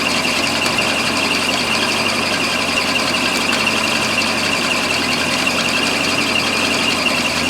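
Toyota 4M-E straight-six idling steadily when warm, just after its ignition timing has been set, with a steady high-pitched whine over the running.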